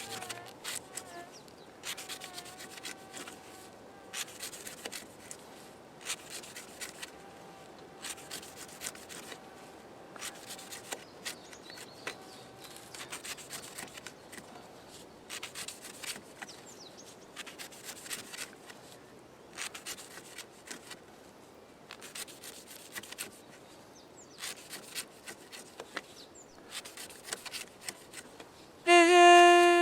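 Cold Steel Recon 1 Tanto folding knife slicing through rope again and again: a short rasping cut roughly every second, about twenty in all, as a test of how well the edge holds. A faint steady hum runs through the first dozen seconds, and loud music starts near the end.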